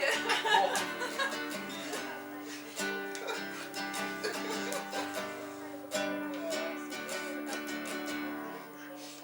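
Acoustic guitar strummed in a steady rhythm, chords ringing between strokes, playing the accompaniment of a song.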